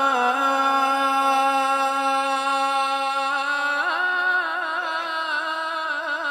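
A man reciting the Quran in maqam Kurd, a single voice chanting a long, drawn-out melodic line of held notes with small ornamented turns. It steps up in pitch about four seconds in.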